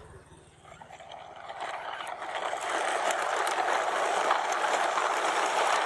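Plastic toy truck wheels rolling and rattling over asphalt as a string-pulled line of toy dump trucks goes by, growing louder over the first few seconds and then holding steady.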